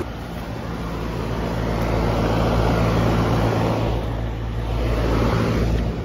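Outdoor heat pump condenser units running in cool mode: a steady low compressor hum under the rush of the condenser fan. It swells through the middle and drops away near the end.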